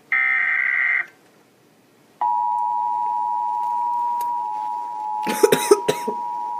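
The last SAME header data burst of an Emergency Alert System Required Monthly Test, a warbling digital screech about a second long, then a second of quiet. About two seconds in, the EAS two-tone attention signal starts and holds steady, played through a television. Near the end, a person's voice breaks in briefly over it.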